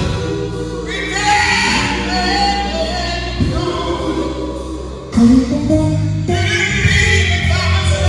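Live gospel music: a small group of singers, a man and two women, backed by a band with drums and keyboard. It gets louder about five seconds in.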